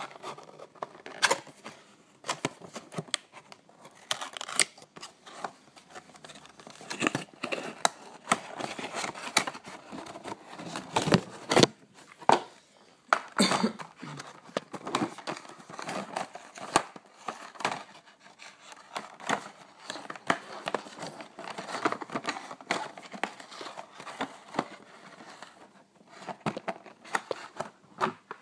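Clear plastic tray and cardboard box of a model airliner being handled and opened: irregular crinkling and rustling of plastic, broken by many sharp clicks and taps.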